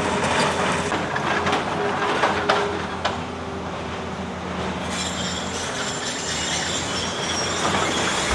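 Heavy earthmoving machinery running with a steady engine hum, a few metallic knocks and, from about halfway through, a high metallic squealing.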